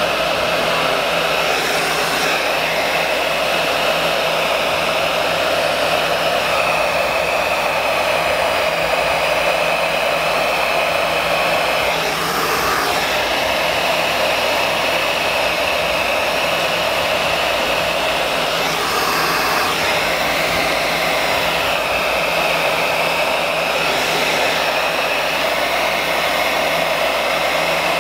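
Electric heat gun blowing hot air steadily, warming a vinyl badge overlay so it conforms. The rush swells and eases slightly now and then.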